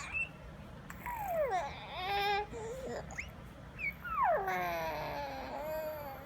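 A baby making high, bird-like squeals and coos that slide down in pitch. There are a couple of falling squeals about a second in, a wavering one, a few short chirps, then a long falling squeal held until near the end.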